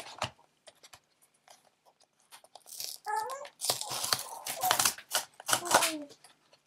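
Plastic and foil packaging of a Disney Lorcana booster display being torn open and crinkled, in noisy bursts from about three seconds in after a few faint clicks. A baby gives a brief squeak about three seconds in and again near the end.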